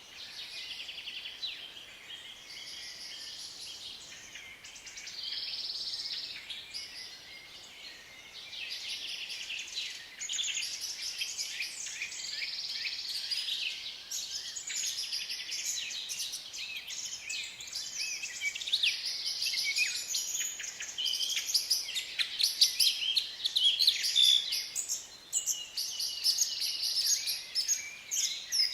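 Forest ambience of several birds chirping and trilling over one another. The calls are sparser at first and grow busier and louder from about a third of the way in.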